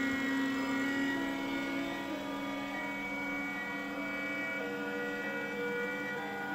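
Stepper motors of a 4-axis CNC hot-wire foam cutter whining as the axes move during a cut, a steady hum of several tones that shift in pitch every second or two as the axis speeds change.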